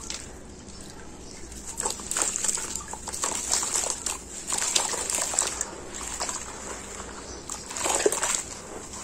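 Gloved hands crushing and crumbling a soaked sand-cement block under water in a basin: irregular sloshing and wet, gritty squelching as the chunks break apart, loudest near the end.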